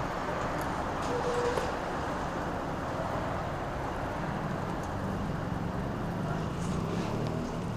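Motorcycle engine idling amid street traffic; its low hum grows stronger about four seconds in.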